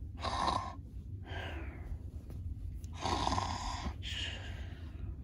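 A person imitating snoring: two slow cycles, each a rasping snore in followed by a breath out that falls in pitch.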